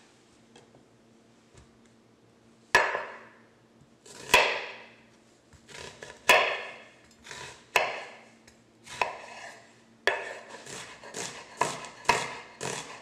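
Chef's knife chopping onion on a bamboo cutting board: sharp single chops against the board about every one to two seconds, starting a few seconds in, then a quicker run of chops near the end.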